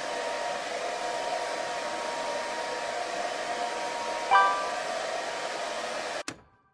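Hair dryer blowing steadily, drying a metallographic specimen; it switches off suddenly near the end. About four seconds in, a bright multi-tone completion chime sounds and rings on briefly after the dryer stops.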